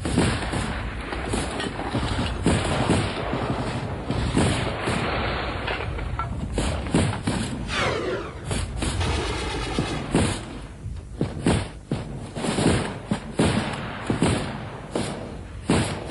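Assault-rifle gunfire: a dense run of overlapping shots and bangs through the first half, then sparser, separate shots with short gaps. There is a brief falling whine about halfway through.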